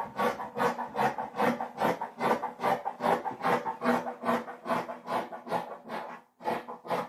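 Scissors cutting through layers of fabric in short, even snips, about three a second, with a brief pause near the end.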